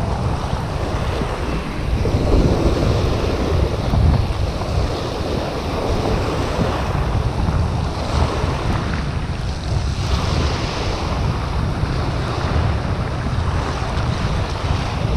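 Wind buffeting the microphone, over small waves washing and breaking onto a shingle beach.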